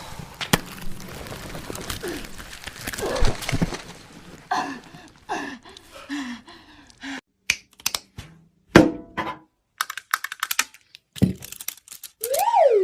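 A string of cartoon sound effects: many sharp clicks and knocks, short pitched blips, and near the end a wobbling whistle-like glide that rises and falls.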